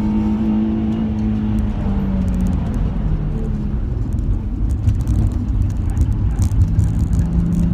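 Nissan 350Z's 3.5-litre V6 heard from inside the cabin under way on track. The engine note sags and falls away about two and a half seconds in, leaving rumbling tyre and road noise, and comes back, slowly rising, near the end as the car drives out of a bend.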